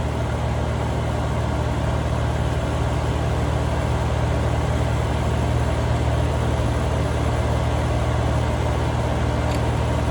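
Steady low mechanical hum of a running machine, like an engine or compressor idling, holding even throughout.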